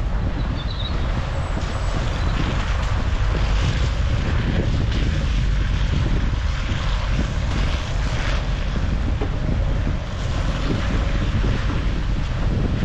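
Car on the move: steady road and engine rumble with wind buffeting the microphone.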